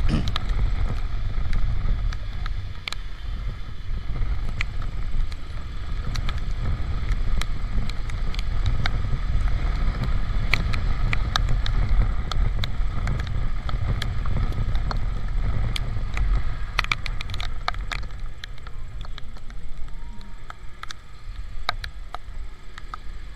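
Riding noise from a Honda Supra GTR 150 motorcycle on a wet road in the rain: a steady low rumble of wind and road noise on the microphone, with scattered sharp ticks. It grows quieter near the end.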